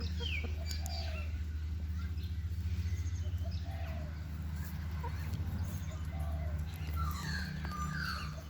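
Backyard hens making soft calls and chirps as they feed: scattered short notes, with a quick falling whistle near the start and a cluster of higher calls near the end, over a steady low hum.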